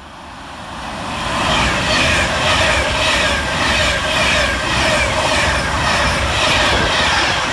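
Class 390 Pendolino electric train passing through at speed. A rising rush as it approaches in the first second or so, then a loud, steady noise of wheels on rail and air rushing past the carriages, with a regular pulse about twice a second as the wheelsets go by.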